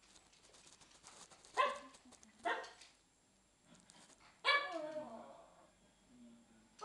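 A small chihuahua barking three times in high-pitched yaps, the third bark longer and trailing down in pitch.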